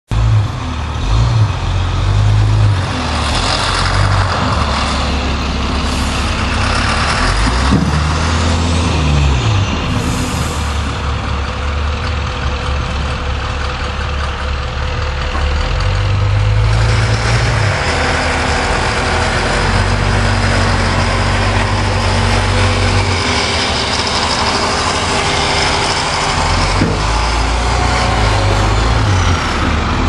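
Snowplow truck's engine running as it works the lot, its note shifting up and down several times, over a steady rush of wind noise.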